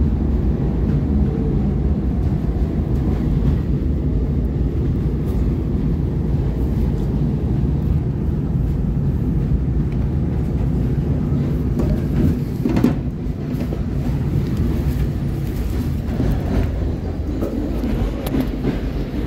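Steady low rumble of a SEPTA Market-Frankford Line train running on elevated track, heard from inside the car. There is a brief louder knock about thirteen seconds in.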